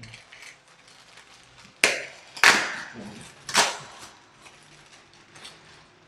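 Clear plastic packaging of a network wall face plate being handled and opened by hand: light crinkling, with three sharp, louder crackles about two, two and a half and three and a half seconds in.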